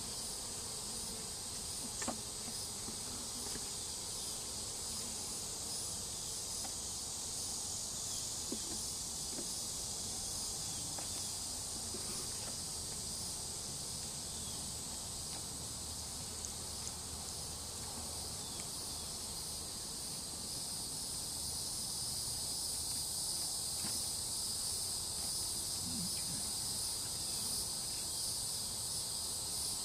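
Steady, high-pitched insect chorus of outdoor summer insects, unbroken throughout, with a few faint knocks now and then.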